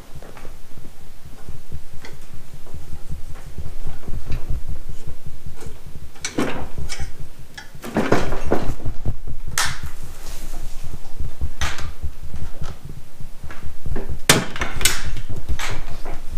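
Hand-tool work on the metal handlebar controls of a snow blower: sharp knocks and clanks of a screwdriver on metal in three clusters, the loudest in the middle, over a continuous low, pulsing rumble.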